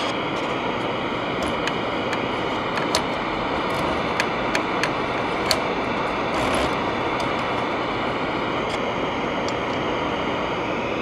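Steady static hiss from a tube radio's speaker, with scattered faint clicks and crackles and no station or voice coming through.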